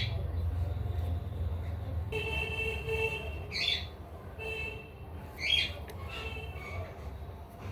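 Cockatiel calling: short sharp squawks about a third and two-thirds of the way through, with some held chirping tones between them.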